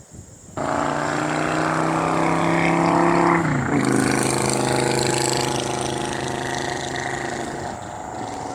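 A loud, steady buzzing hum that starts suddenly, drops in pitch about three seconds in, and eases off slightly near the end.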